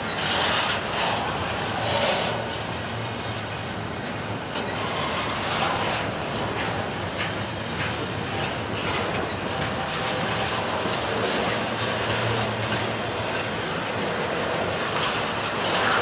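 Intermodal freight train rolling past: a steady rolling noise of the cars, with wheels clicking over rail joints.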